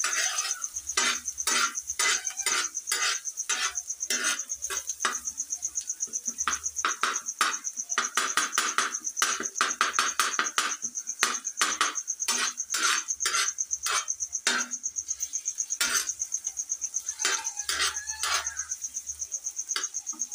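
Perforated steel spatula scraping and clacking against a flat iron tava while chopped onion, chillies, ginger and tomato are stirred, in irregular strokes about two or three a second. A steady high-pitched trill runs beneath.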